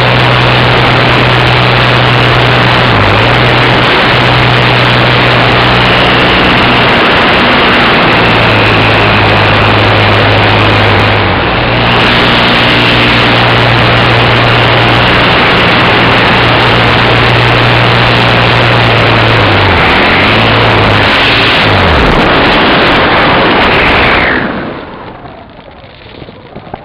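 Electric glider's motor and propeller running steadily at full power with heavy wind rush on the onboard camera's microphone. Near the end the motor's pitch sags and it cuts off, leaving much quieter wind noise as the glider flies unpowered.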